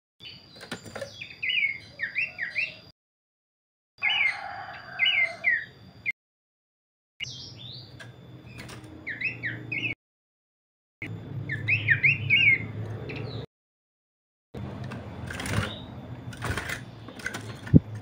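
Pelanduk semak (Horsfield's babbler) calling in short phrases of quick, high chirps, heard in several separate clips broken by sudden gaps of silence. A faint steady high tone sits behind the early clips. The last clip holds a few sharp knocks instead of chirps.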